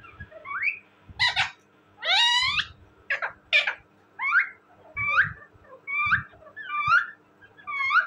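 Indian ringneck parakeet calling: a string of about a dozen short, high calls, many rising in pitch, with short gaps between them. A longer call comes about two seconds in.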